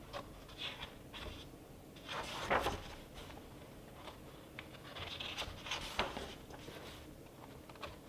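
Pages of a book being turned by hand: paper rustling and flapping, with the loudest turn about two and a half seconds in, another around five to six seconds in, and small paper ticks between.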